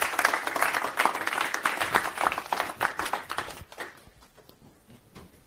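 Audience applauding, dying away about four seconds in, followed by a few scattered knocks.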